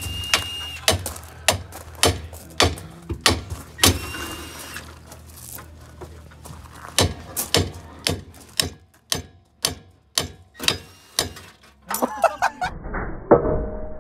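Footsteps crunching on gravel, about two steps a second, with a brief lull midway. Near the end come a few louder knocks, the last one ringing briefly like metal.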